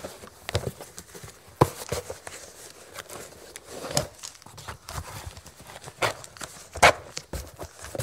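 Leather tobacco pouch being handled and tossed about, its leather giving irregular soft slaps and knocks with rustling between them. The sharpest slaps come about one and a half seconds in and near the end.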